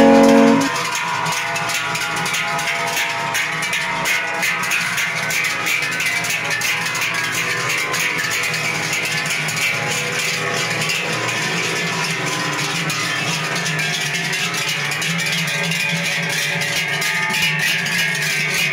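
A tune with steady held notes cuts off just under a second in. Then the large bells hung on the necks of a walking herd of cows clang and clatter steadily, many bells at once.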